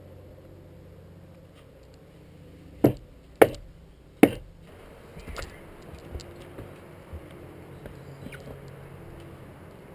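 Three sharp knocks less than a second apart, then a run of softer clicks and scuffs: hard contact and handling noise while scrambling through a rock passage among boulders.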